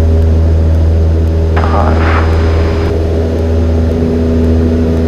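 Cessna 172N's four-cylinder Lycoming engine and propeller droning steadily, heard from inside the cabin. A brief hiss, like a radio or intercom opening, comes about one and a half seconds in and lasts just over a second.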